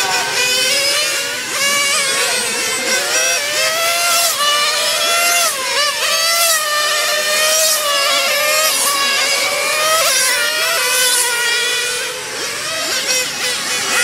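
Several remote-control race cars running on a track. Their high-pitched motor whine overlaps and keeps rising and falling in pitch as the cars speed up and slow down.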